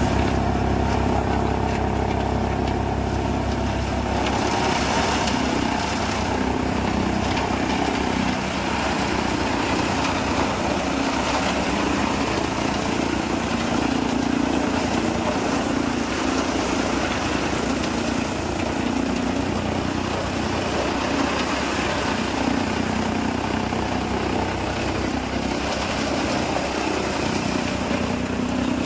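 Tractor-driven silage chaff cutter running steadily under load as green fodder stalks are fed in, the tractor engine, chopping cutter and blower making one continuous machine drone. The hum changes about four seconds in.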